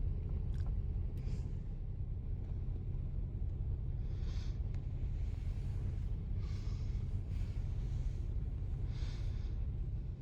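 Steady low rumble of parking-garage ambience, with a few short soft hisses every couple of seconds; no horns are sounding yet.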